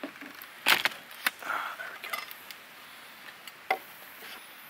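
Metal pie iron clacking and knocking as it is opened and toasted mountain pies are shaken out onto a paper plate: a handful of sharp clacks and taps, the loudest just under a second in, with a short scrape soon after.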